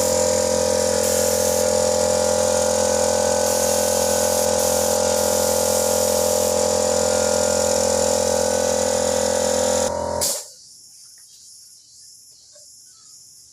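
Small electric air compressor running steadily with a high air hiss, as used to feed a spray gun for painting, then switched off abruptly about ten seconds in.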